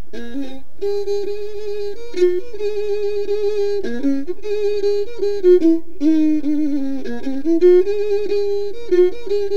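Instrumental music: a single solo melody instrument plays an ornamented tune with vibrato and quick turns, over a low steady hum.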